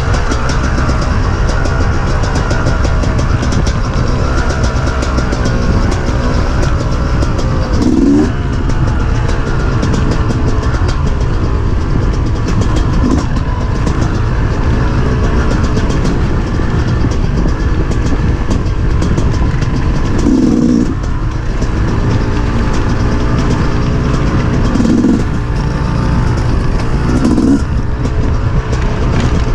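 Off-road dirt bike engine running under load while being ridden, with a constant low rumble underneath; the engine note climbs sharply a few times as the throttle is opened.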